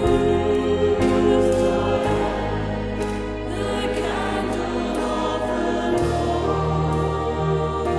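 Worship song: a choir singing over sustained instrumental accompaniment, with the bass and chords changing every second or so and again about six seconds in.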